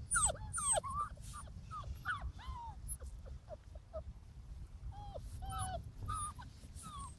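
Bernese mountain dog puppies, five weeks old, whining in many short high-pitched calls that slide down in pitch, crowded together at first and thinning out toward the end.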